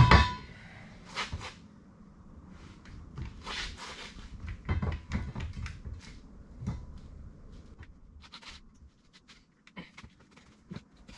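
A heavy thump with a short metallic ring as a large off-road mud tire is dropped onto a beadlock wheel on a tire stand. It is followed by scattered knocks and rubbing of rubber as the tire is pushed and worked down over the rim.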